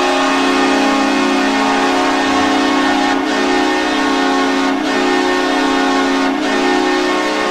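NHL arena goal horn sounding one long, loud, held blast, a deep chord of several steady tones, with slight dips about every second and a half in the second half.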